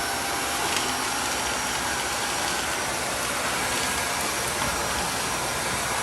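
Tineco Floor ONE S5 cordless wet-dry vacuum-mop running in max mode: a steady rush of motor and suction airflow with a faint high whine.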